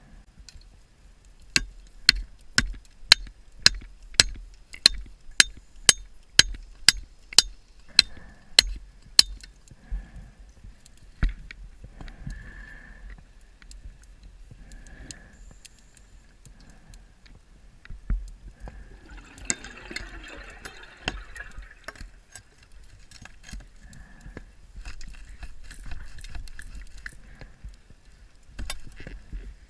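Underwater: a run of sharp, evenly spaced knocks, about two a second for some eight seconds, then scattered fainter ticks. About twenty seconds in comes a short rush of scuba exhaust bubbles from the diver's regulator, with a fainter one later.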